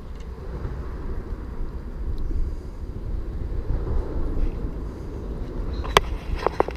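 Steady low outdoor rumble, swelling and easing, with a few sharp clicks and taps near the end.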